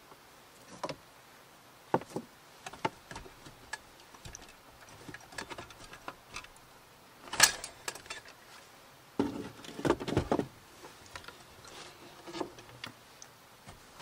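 Items being rummaged through and lifted out of a wooden storage box: scattered knocks, clinks and rustles. The sharpest knock comes about seven seconds in, and there is a busy run of handling noises around ten seconds.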